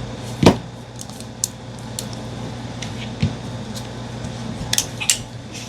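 Scattered clicks and knocks from two folding utility knives being handled, with the loudest knock about half a second in. A steady low hum runs beneath.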